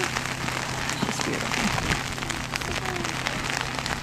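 Steady patter of rain: an even hiss dotted with many small drop ticks.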